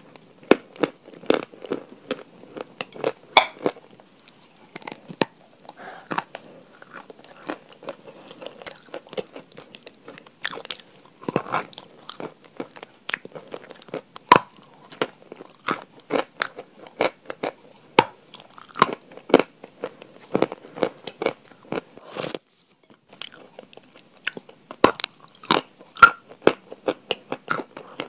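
Close-up crunching as crunchy food is bitten and chewed, a rapid irregular series of sharp crisp crunches, broken once by a moment of silence about 22 seconds in.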